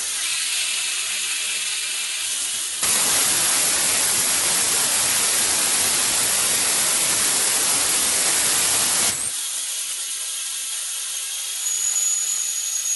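Small liquid-oxygen/gaseous-methane rocket engine on a hot-fire test: a steady high gas hiss, then about three seconds in the engine lights with a sudden loud, even rushing noise that holds for about six seconds and cuts off abruptly, leaving the high hiss of the gas purge running.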